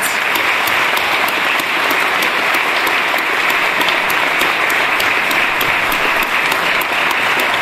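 Audience giving a long, steady round of applause, many hands clapping at once.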